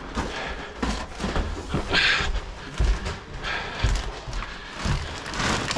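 Footsteps going down a staircase, with low thuds about once a second and knocks and rustles from chairs being carried down.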